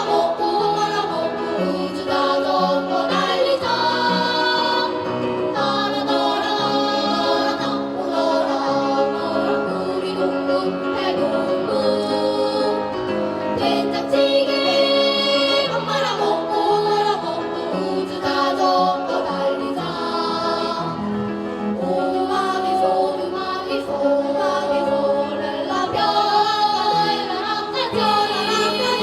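Small vocal ensemble singing a song together, several voices at once.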